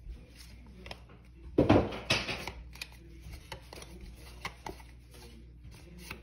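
Small handling noises of trading cards and a foil booster pack being moved by hand: scattered light clicks and rustles, with a louder burst of rustling a little under two seconds in.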